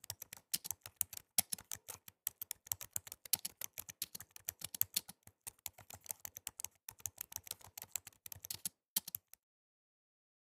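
Keyboard typing sound effect: rapid, irregular key clicks, several a second, that stop about nine seconds in.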